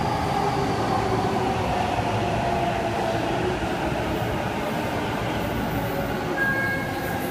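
JR East E233-series Chuo Line electric train pulling into the station and braking, its motor whine slowly falling in pitch over steady wheel and running noise. A brief high squeal comes near the end.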